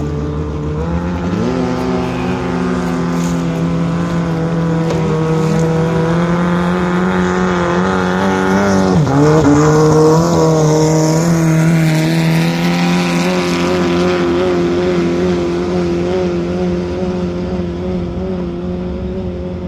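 Thai longtail racing boat's engine running at high revs, driving the propeller on its long exposed shaft. The pitch steps up about a second and a half in, dips briefly near the middle and recovers, and the sound swells to its loudest mid-way before easing off as the boat passes.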